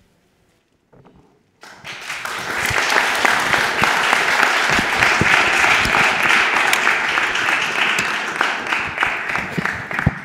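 Audience applauding, starting about two seconds in and fading away at the end.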